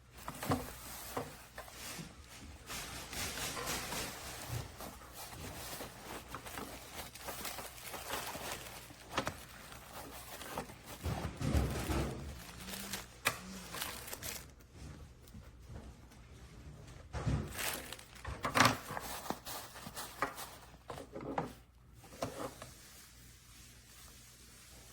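Irregular rustling and crinkling with light knocks, as of things being handled.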